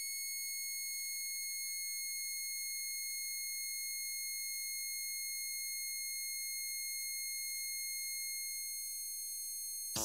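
A single high-pitched electronic tone held steady for the whole ten seconds from the sound chip of a 2019 VTech Mimi Doremi musical toy, played through its small speaker.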